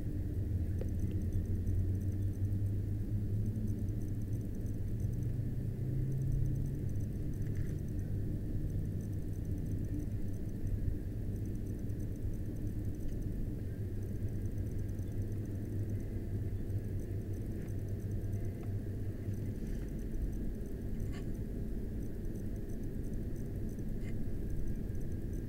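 Steady low hum and rumble of background noise that stops about twenty seconds in, with a few faint clicks.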